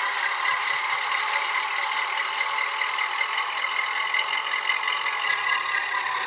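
Model British Rail Class 05 diesel shunter in O gauge: a LokSound V5 sound decoder plays a diesel engine running sound through a small sugarcube speaker as the model moves slowly along the track. The sound is steady and thin, with little bass.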